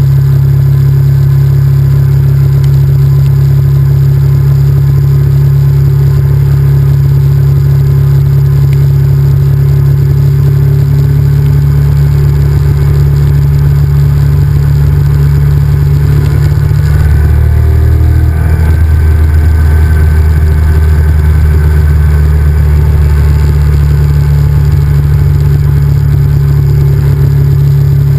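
Honda VTR1000F's 90-degree V-twin engine running steadily under way, heard loud and close. About two-thirds through, the engine note drops briefly and then settles again.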